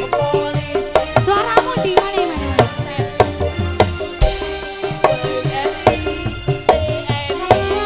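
Live dangdut band playing a fast number: electric guitar, bass and drums keep a steady beat under a wavering melody line.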